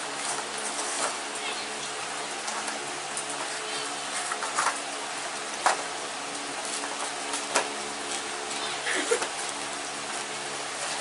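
A dog chewing and tearing at a cardboard McNuggets box, scattered crackles and crinkles over a steady hiss and hum.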